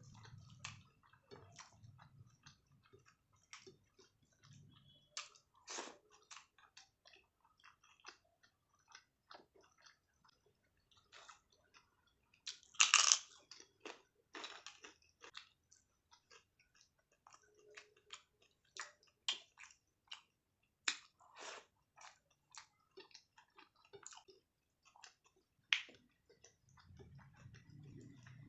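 Close-up eating sounds of a person chewing a mouthful of rice and mashed eggplant: many short wet mouth clicks and smacks, with a louder burst about halfway through.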